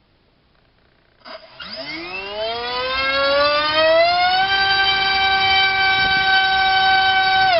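Rcinpower G2306 2200 kV brushless drone-racing motor spinning a TGS 6x4 propeller on a 4S battery during a thrust test: a loud whine that starts about a second in, climbs in pitch for about three seconds as the throttle is run up, then holds steady at full throttle, beginning to wind down at the very end.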